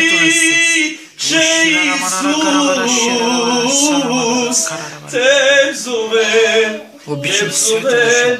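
A man singing an unaccompanied worship song, holding long wavering notes with short breaks for breath about a second in, around five seconds and around seven seconds.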